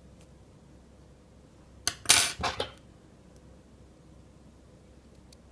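Small metal crafting tools clinking against each other and the work surface: a quick cluster of sharp clinks about two seconds in, lasting under a second.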